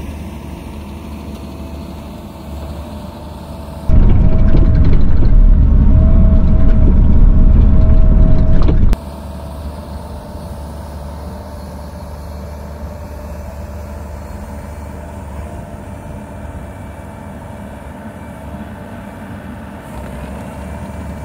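Bobcat E42 mini excavator's diesel engine running steadily under work, with a steady whine over it; for about five seconds in the middle it is much louder and closer.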